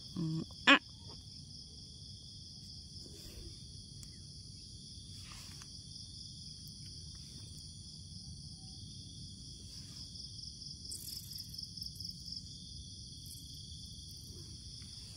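Steady chorus of insects calling, several high-pitched calls held at once, one of them pulsing rapidly, over a low background rumble. A single sharp click just under a second in.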